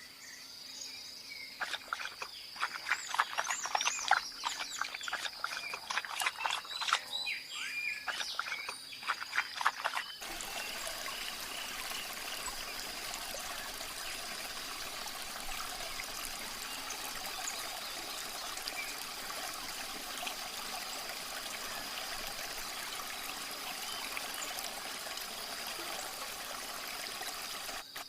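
Outdoor nature ambience: a steady high insect drone with many rapid chirping animal calls for the first ten seconds. About ten seconds in, it changes abruptly to a steady rushing like running water, with the high drone carrying on.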